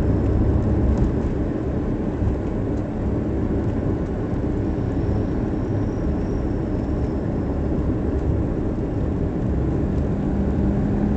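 Steady low road rumble of a car being driven, heard from inside the cabin: tyre and engine noise at cruising speed. A low steady hum joins near the end.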